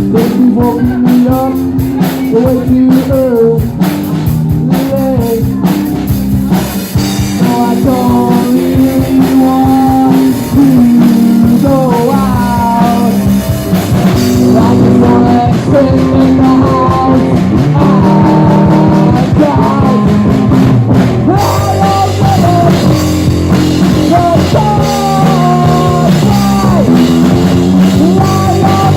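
Live rock band playing loud, with drum kit, guitar and singing.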